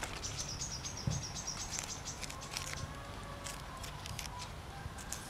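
Faint rustling and small snaps of leafy greens being stripped and trimmed with a knife, with a steady high insect trill behind in the first half.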